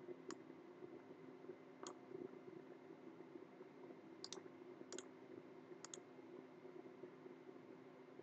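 Computer mouse button clicks, some single and some in quick pairs, about five in all spread over several seconds, against a faint steady hum.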